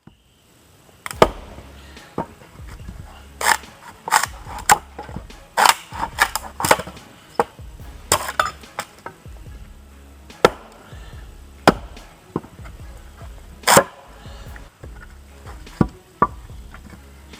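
Wood being chopped or split by hand with a heavy tool: repeated sharp blows at irregular intervals, several a few seconds apart and some in quick runs. Background music with a low beat plays underneath.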